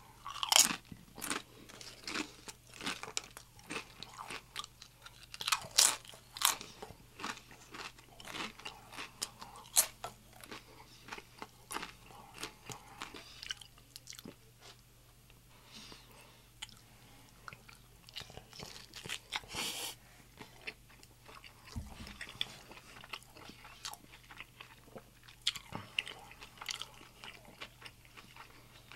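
Close-miked crunching and chewing of crisp tortilla chips: sharp crackling crunches come thick for the first several seconds, then thin out into softer, sparser chewing, with one more loud crunch about twenty seconds in.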